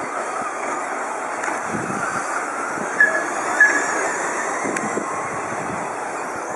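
RC short-course trucks racing on a dirt track, a steady blend of motor and tyre noise. Two short, high beeps stand out about 3 and 3.6 seconds in.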